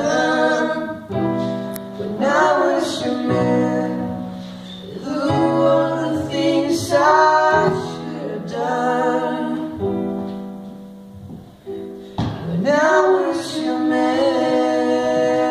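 Live pop song: young male voices singing in sung phrases into microphones over held electric keyboard chords, with brief pauses between phrases.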